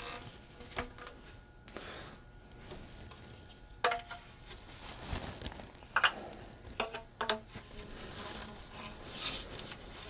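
PVC pipe, elbows and short nipples handled and pushed together in a dry fit: a few light plastic clicks and knocks, the sharpest about four and six seconds in, over soft rubbing.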